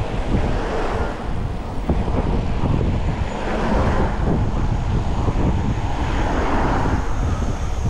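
Wind rushing over the microphone of a Brompton folding bike speeding downhill: a steady, heavy low rumbling noise that swells a few times.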